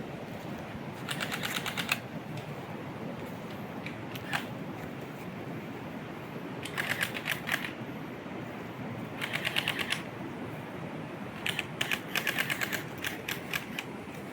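Rapid trains of evenly spaced clicks, like a trill, coming in about four bursts of roughly a second each, over a steady low rushing background.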